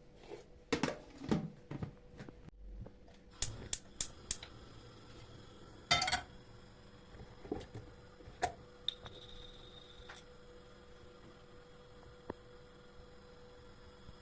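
Kitchen handling sounds: dishes and utensils being set down and moved, a scattered series of knocks and clinks with the loudest about halfway through. A short high-pitched tone lasts about a second a little after that, over a faint steady hum.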